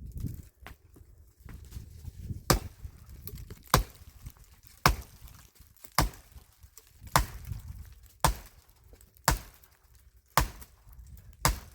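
Wood being chopped: about nine sharp, regular strikes roughly one a second, beginning about two and a half seconds in.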